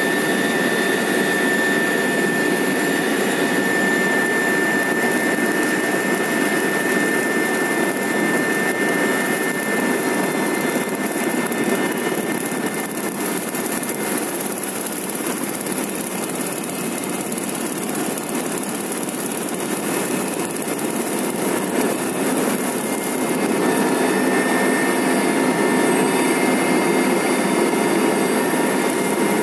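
Helicopter's turbine engines and rotor running, heard from inside the cabin while it lands, with a high whine that fades out about ten seconds in.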